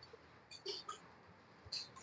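Faint, irregular clatter of computer keyboard keys as several typists type at full speed, with clusters of clicks about half a second in and again near the end.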